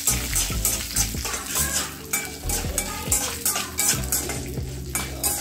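A slotted steel spatula scraping and clinking in a stainless steel kadai in repeated stirring strokes. Dried red chillies, a green chilli and urad and chana dal sizzle in a little oil as they roast.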